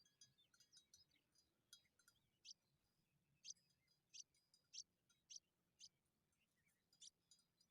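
Faint, high-pitched bird chirps: soft twittering at first, then a run of short, sharp single notes about one every half second to second.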